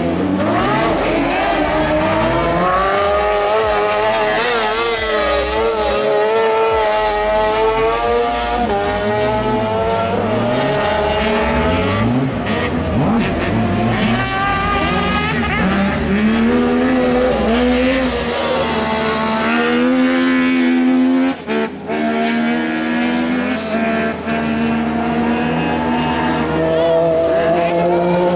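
Kart cross buggies' motorcycle engines revving hard as they lap, the pitch climbing through each gear and dropping at every shift, over and over, with the throttle briefly lifted twice a little past two-thirds of the way through.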